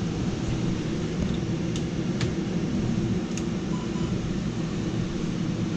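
Steady low machinery hum with several level tones, with a few faint clicks about two and three seconds in.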